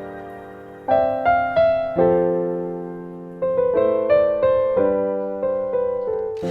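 Background piano music: soft single notes and chords, each struck and left to fade, in a slow gentle melody.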